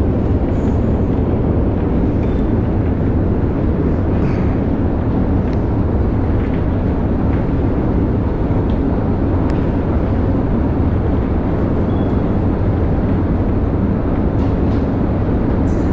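Long metro escalator running: a steady low mechanical rumble heard while riding it, with a few faint ticks.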